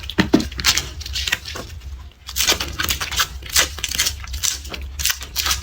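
Garlic being peeled by hand close to the microphone: a quick run of crisp crackles and rustles as the dry papery skin cracks and tears off the cloves, with a short lull a little before two seconds in.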